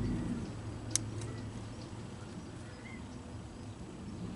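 A single sharp click about a second in, followed by a few faint ticks, over a low steady background hum, as a power steering line fitting with a new O-ring is handled and pushed back into place.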